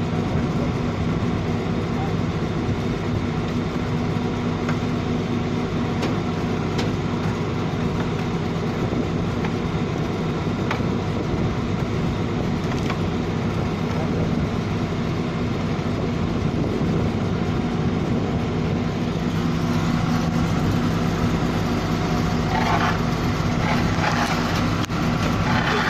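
Asphalt paver's diesel engine running steadily at close range, with a few light knocks.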